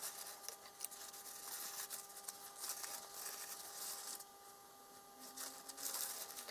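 Paper towel rustling and crinkling in irregular bursts as fingers wipe and handle a small metal optical filter housing, over a faint steady whine.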